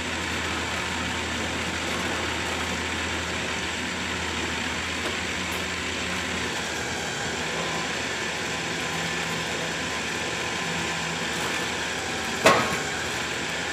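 Electric winch in a van running steadily as it draws a race car up loading ramps, with a single sharp clunk near the end.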